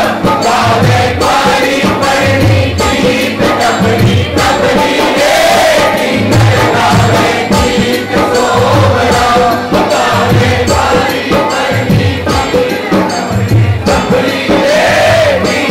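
Hindu devotional bhajan sung by a group, a lead voice on a microphone with others singing along, over percussion keeping a steady beat.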